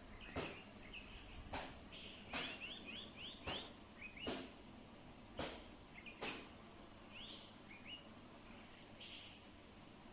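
A small bird chirping in short, quick rising notes, some in rapid runs of three or four. Sharp clicks or taps cut in about once a second over the first six seconds, louder than the chirps.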